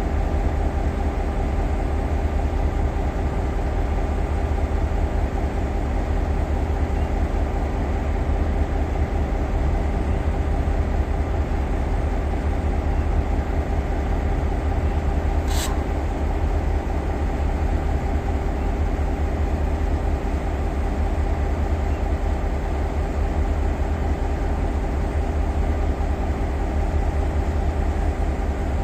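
Class 5E1 electric locomotives standing with their traction-motor blowers running: a steady, unchanging mechanical hum. A single short click comes about halfway through.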